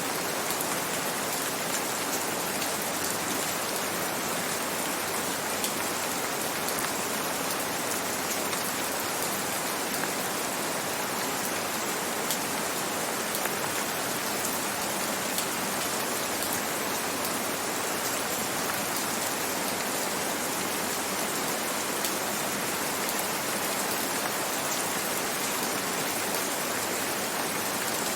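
Steady rain: an even hiss with scattered faint ticks of single drops.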